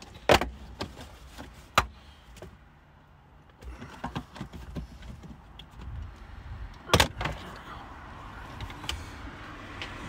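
Plastic door-sill trim panel on a Toyota 4Runner being pulled up by hand, its retaining clips snapping loose in a series of sharp clicks, the loudest about seven seconds in.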